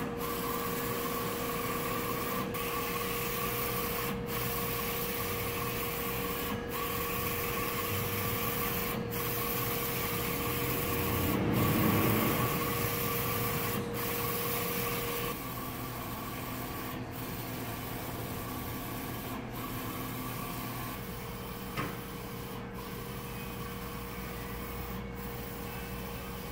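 Roland Soljet Pro III XC-540 wide-format inkjet printer/cutter running: a steady mechanical hum broken by brief dips about every two and a half seconds. It swells briefly around the middle and runs a little quieter in the second half.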